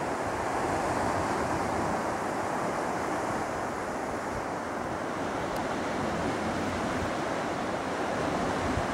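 Sea surf breaking and washing around rocks, a steady rushing, with wind buffeting the microphone.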